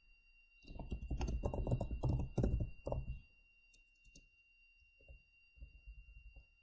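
Computer keyboard typing: a quick run of keystrokes lasting about two and a half seconds, then a pause and a few scattered keystrokes near the end.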